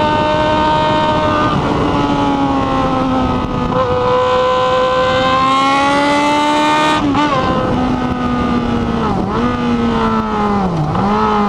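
Yamaha XJ6 N motorcycle's inline-four engine running under way with a strong, even engine note. The pitch climbs slowly through the middle, then dips sharply and recovers three times in the second half as the revs change.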